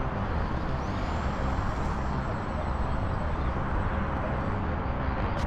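Wind rumbling on the microphone, with the thin high whine of a small RC plane's MC1108 4000KV brushless motor and 5030 propeller over it. The whine rises in pitch about a second in as the throttle opens for a ground takeoff, holds steady, and fades about four and a half seconds in.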